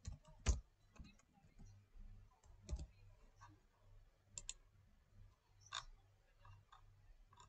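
Faint, irregularly spaced clicks of a computer keyboard and mouse: keys tapped in a password field, and mouse clicks.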